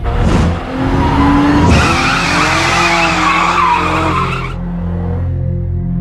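BMW 1 Series M Coupé's twin-turbo inline-six running hard while its rear tyres squeal and skid in a drift. The squeal is loudest from about two to four and a half seconds in.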